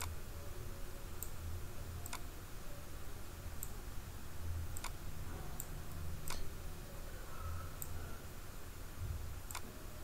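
Computer mouse clicking as spline points are picked and dragged in CAD software: about six short, sharp clicks spaced irregularly, over a low steady hum.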